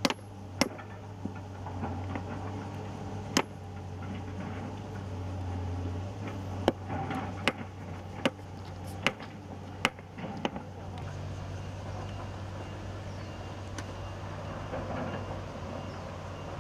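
Irregular sharp metal strikes of a hand tool on a steel railway rail and its fittings, about eight in the first ten seconds, over the steady low hum of an engine running. After about eleven seconds the strikes stop and only the engine hum remains.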